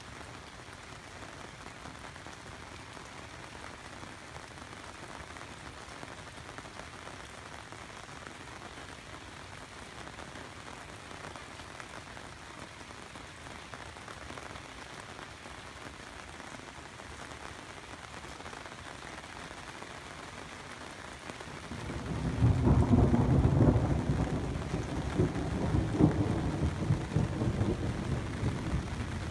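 Steady rain falling, then about three-quarters of the way through a loud, deep rumble of thunder rolls in and keeps going, swelling twice.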